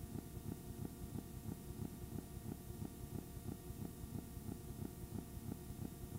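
A steady low hum with a fast, regular ticking buzz, about six ticks a second, and no programme sound.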